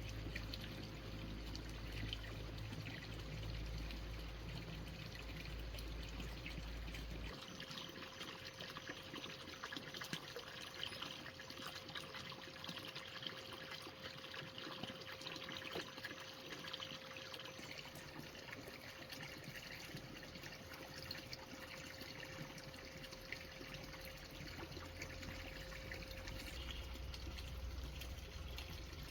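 Water trickling and pouring steadily, with a faint steady hum underneath.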